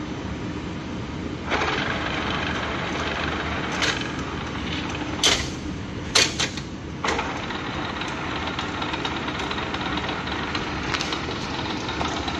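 Clausing-Colchester 15x50 lathe's headstock and motor running up on first start, spinning the chuck with a steady mechanical hum that steps up about a second and a half in. A few sharp clanks come between about four and seven seconds in.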